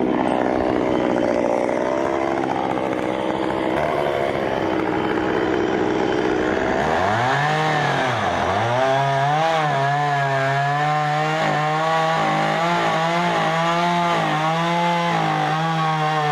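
Chainsaw engine running: a steadier note at first, then about seven seconds in it revs up, dips once, and holds at high speed with a wavering pitch as it cuts through wood.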